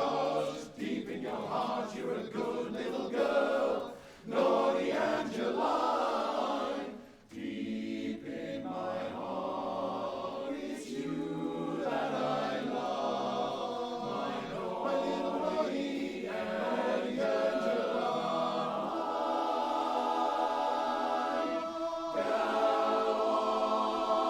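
Male barbershop chorus singing a cappella in close harmony, the chords shifting and then held steady over the last few seconds.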